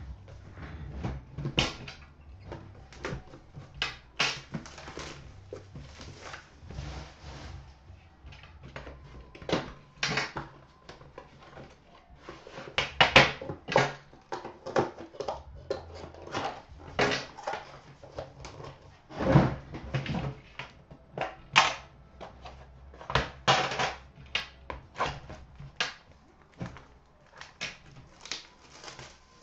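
Irregular clicks, taps and rustles of hands handling a metal trading-card tin on a glass counter: the tin set down, its lid lifted off, and the wrapped pack inside taken out.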